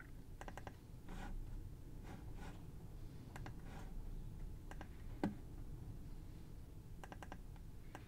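Computer mouse and keyboard clicks while editing on screen, several coming in quick clusters of three or four, with one sharper knock a little after five seconds in.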